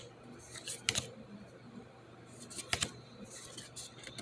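Trading cards being handled and swapped in the hand: faint rustling with a few short, sharp flicks of card stock, the clearest about a second in and near three seconds.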